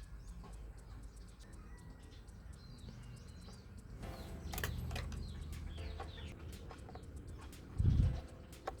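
Faint bird calls, including fowl clucking and small birds chirping, over a steady low hum, with a few sharp clicks and a dull low thump shortly before the end.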